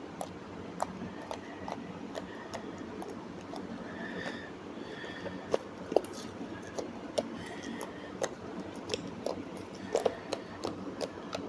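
Close-miked ASMR handling sounds: irregular small clicks and taps, a few a second, over a steady low hiss.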